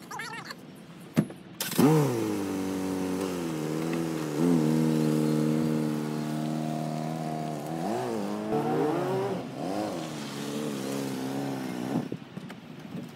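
A car door shuts, then the Mazda5 minivan's engine starts and runs, rising and falling in pitch several times as it revs while the car pulls away. It cuts off suddenly near the end.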